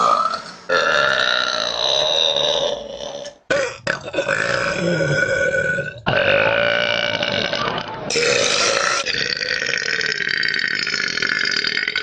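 Women burping: a run of long, drawn-out burps from separate recordings spliced together, each lasting one to three seconds, with abrupt cuts between them.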